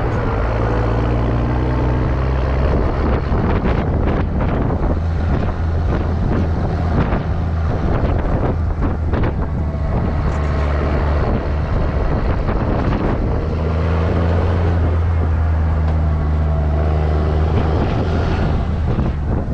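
Mini excavator's diesel engine running steadily under load as it digs, with scrapes and knocks from the bucket working rocky, sandy dirt.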